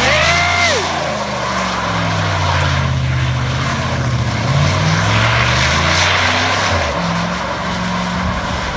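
A 1988 GMC pickup's engine revving up and down while the truck slides in donuts, with a rough rushing noise over it from the tyres and dirt. A brief, high, wailing cry sounds right at the start, and the engine note drops and changes character about seven seconds in.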